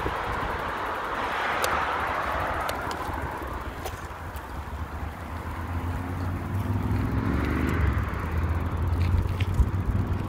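Riding noise from a moving bicycle: wind rumbling on the microphone over tyre noise on pavement, with a motor vehicle passing that rises and falls in pitch between about six and eight seconds in. A few sharp clicks and knocks come near the end.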